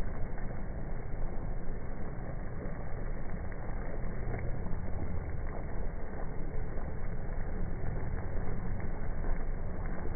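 Chicken curry bubbling in a cooking pot over the fire, a steady rumbling boil.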